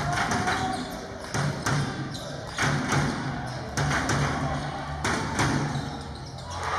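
A basketball bouncing on a gym floor as it is dribbled: a string of irregular thumps, with music and its low bass playing underneath.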